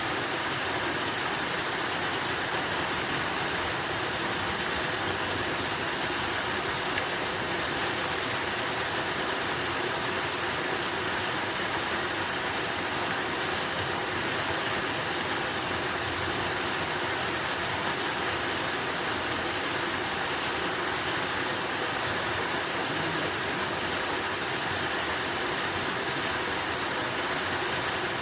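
Flowing water rushing steadily, an even hiss with no change.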